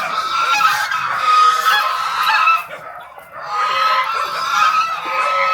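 Domestic geese honking, many calls overlapping, in two long bouts with a short lull about three seconds in.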